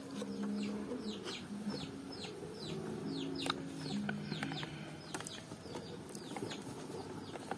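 Birds calling: a steady run of short, falling chirps, about three a second, over low, drawn-out notes.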